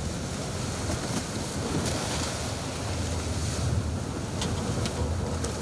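Wind blowing across the microphone over the sea's waves, with a steady low rumble underneath and a few sharp clicks in the second half.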